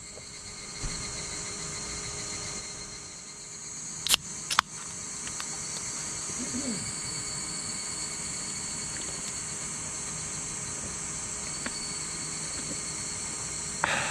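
A steady summer insect chorus of several high, even drones, with two sharp clicks about half a second apart around four seconds in and a brief louder rustle near the end.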